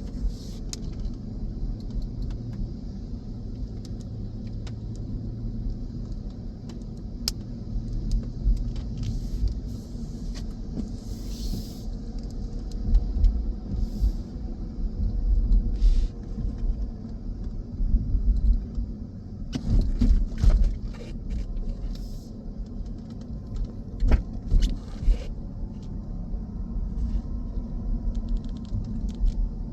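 Low, steady rumble of a car on the move, swelling louder several times in the second half, with scattered light clicks.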